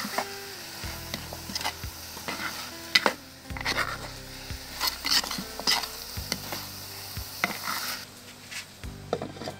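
A metal spoon scraping and stirring a sizzling curry of kekatiya flowers, dried fish and tomatoes in a clay pot, with repeated short scrapes. The sizzling stops near the end.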